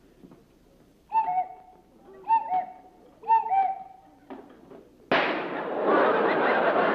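Cuckoo clock calling 'cuck-oo' three times, each a falling two-note call about a second apart. About five seconds in, a sudden loud bang breaks in and turns into a steady roar of noise.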